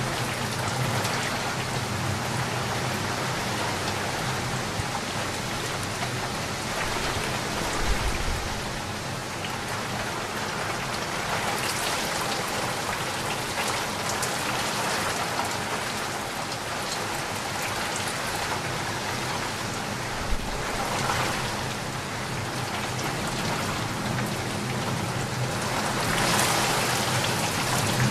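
Heavy rain pouring steadily, with brief low thumps about eight and twenty seconds in.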